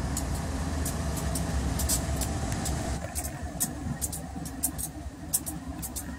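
Union Pacific diesel locomotives passing close by at the head of a freight train, their engines giving a steady deep rumble. Short, sharp high clicks and squeaks keep coming through it.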